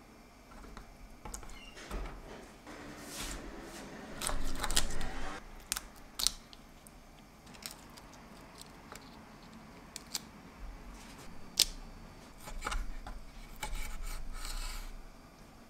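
Raw shrimp being peeled and cut by hand on a wooden cutting board: crackly rustling of shells being pulled off, with scattered sharp clicks and taps of a small knife against the board.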